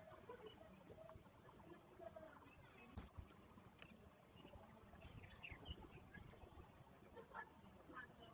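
Near silence: a faint steady high-pitched tone throughout, with a single sharp knock about three seconds in and a fainter click just after.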